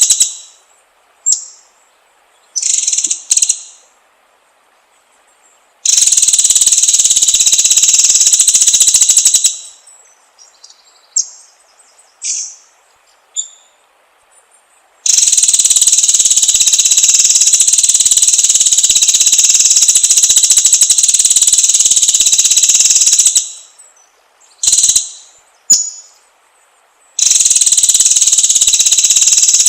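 A buzzing insect gives three long, loud, steady drones with abrupt starts and stops, the longest about eight seconds. Between the drones, birds give short high chirps.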